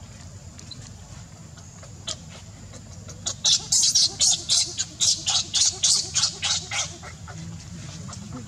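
Baby macaque screaming: a quick run of shrill, high-pitched cries, about three or four a second, starting about three seconds in and stopping near seven seconds.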